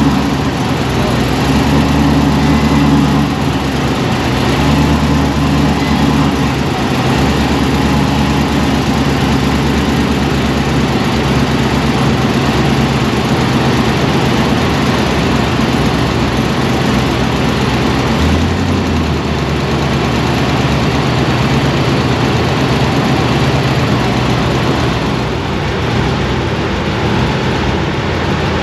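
Supercharged V8 with an LT4 blower idling steadily. The crew suspects one cylinder, number three, has lost compression.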